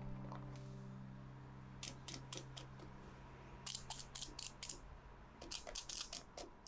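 Clusters of short, crisp clicks and crackles as a hot cheesecake in a parchment-lined pan is handled on a wire cooling rack with a silicone oven mitt. They come in three bursts, about two, four and six seconds in, while a held musical note fades out near the start.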